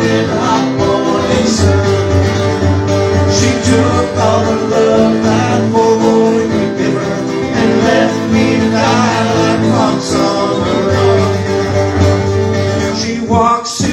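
Live band music: two acoustic guitars strummed through a PA in a country-bluegrass style, over a steady bass line.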